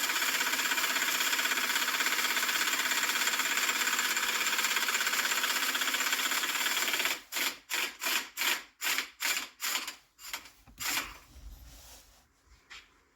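Impact wrench hammering continuously on the front axle shaft nut, then in a run of short bursts, about two a second, from about seven seconds in, before stopping near the end.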